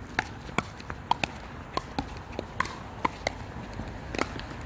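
Rapid exchange of sharp pops as pickleball paddles strike the hollow plastic ball in a fast doubles rally, about ten hits at irregular intervals of roughly half a second.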